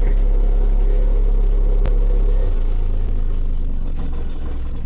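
A pair of Digital Designs 712 Redline subwoofers in their box playing a steady deep sine test tone from a signal generator, at about 34 Hz and then stepped down to about 23 Hz partway through. There is a single click about two seconds in.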